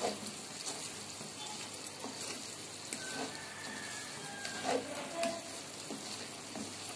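Goat mutton pieces with green chillies and fresh mint and coriander sizzling in oil in a pan while a spatula stirs them. A steady hiss with a few short scrapes of the spatula against the pan.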